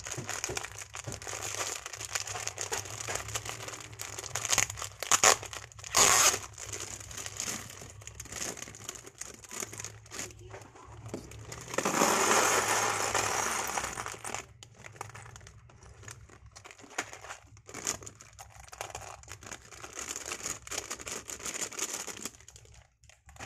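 Plastic polybags of Lego parts crinkling and rustling as they are handled, with scattered sharp clicks and knocks of plastic. About halfway through, a louder stretch of crinkling lasts two to three seconds.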